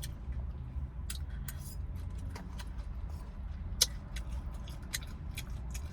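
Scattered short clicks and smacks of someone eating fried pork chop, one louder click near the middle, over a steady low rumble inside a car.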